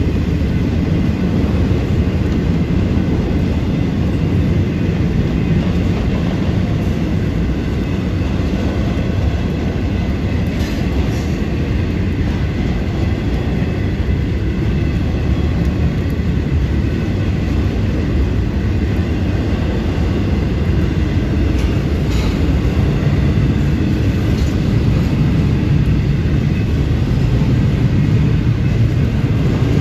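Florida East Coast Railway intermodal freight train rolling past at a grade crossing: a steady rumble of the cars on the rails, with a few clacks.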